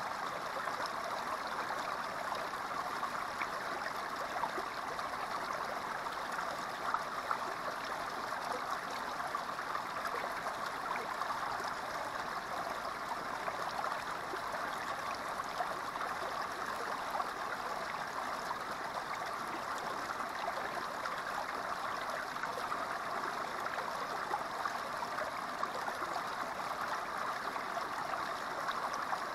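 A small creek's water spilling over a low rock ledge into a shallow pool: a steady, unbroken splashing rush.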